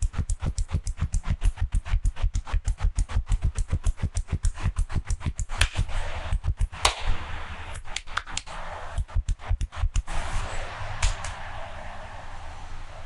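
Hands striking in rapid percussive massage strokes, about six a second, each with a dull thump. About six seconds in the strokes thin out and give way to a steady rubbing hiss of hands massaging.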